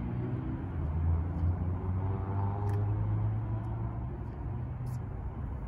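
A vehicle engine running as a low, steady rumble, its note rising slightly in the middle and easing off near the end.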